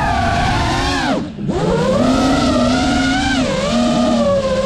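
Brushless motors and propellers of a 5-inch FPV racing quadcopter whining, heard from its onboard GoPro, the pitch gliding up and down with the throttle. About a second in, the throttle is chopped: the whine drops sharply in pitch and fades briefly, then climbs back as power returns. A shorter dip in pitch follows near the middle.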